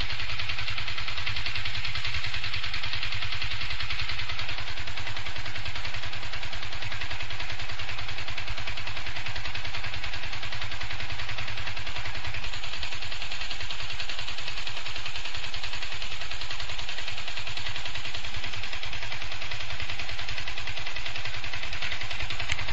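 Yamaha FZ150i's single-cylinder engine running at a steady speed with a rapid metallic clatter. The noise has come back after an overhaul with a new engine bearing and primary driven gear, and the owner suspects the valves.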